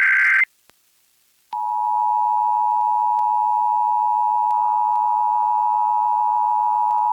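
Emergency Alert System required monthly test tones on FM radio: the last SAME header data burst, a harsh buzzy warble, cuts off about half a second in. After about a second of silence, the EAS two-tone attention signal starts and holds steady.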